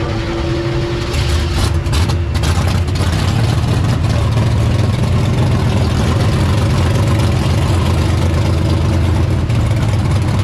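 Drag-racing engine idling with a deep, steady rumble. It grows a little louder about a second in.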